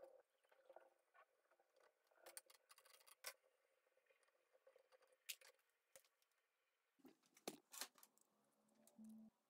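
Near silence, with a few faint scattered metallic clicks and ticks as a T-handle tap wrench is turned by hand, cutting threads in an aluminum piece held in a bench vise.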